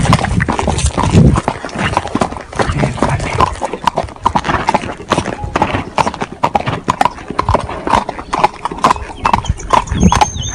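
Horse's hooves clopping on a hard gravel track, a quick, irregular run of strikes several times a second.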